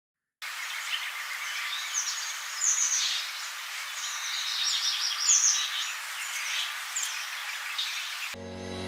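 Birds chirping over a steady outdoor hiss, starting about half a second in. Background music comes in near the end.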